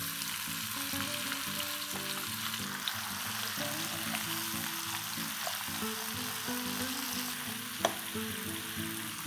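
Mixed vegetables sizzling steadily in hot oil in a nonstick pan while being stirred with a silicone spatula, with one light knock near the end. Soft background music plays underneath.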